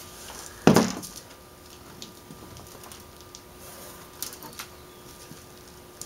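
The removed polymer outer door panel of a Saturn S-series being handled: one sharp knock about a second in, then faint scattered clicks and rustles over a faint steady hum.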